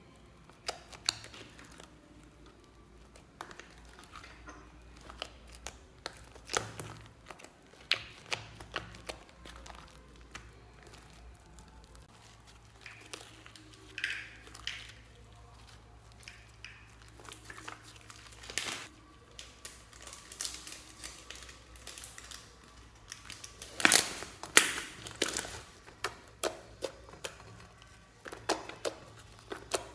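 Slime mixed with shaving foam and tiny beads being stretched, squished and kneaded by hand, giving irregular wet clicks, pops and crackles. The loudest cluster of pops comes about four-fifths of the way through.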